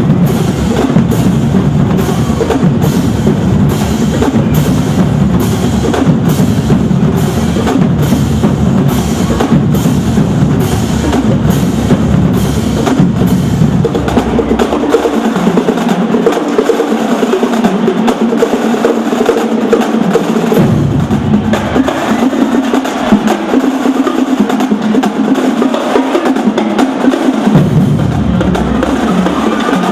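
Marching drumline of snare drums, tenor drums and bass drums playing fast, dense rhythms. About halfway through, the bass drums go silent for several seconds at a time, coming back in briefly twice, while the snares and tenors keep playing.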